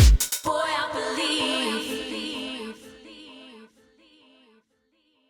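Background music ending: a dance track's heavy beat stops about half a second in, leaving a wavering sung melody that fades out by about four and a half seconds in.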